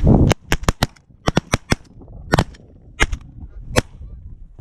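A volley of shotgun shots from several goose hunters firing together at incoming geese. About ten quick, overlapping shots come in the first two seconds, then a few single shots spaced further apart.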